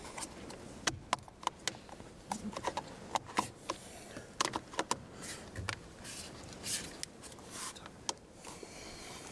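Irregular clicks, taps and rubbing of plastic door trim and its rubber seal being handled and pressed into place by hand at the base of a door mirror.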